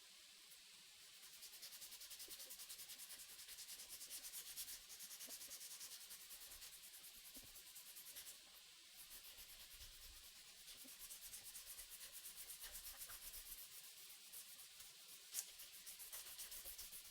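Hand sanding a knife handle with sandpaper: faint, quick back-and-forth scratching strokes, about four a second, pausing briefly about halfway through.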